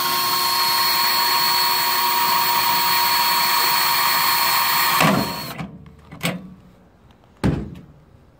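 Power drill running at a steady speed with a constant whine, drilling out a pop rivet, for about five seconds before it stops. Two sharp knocks follow.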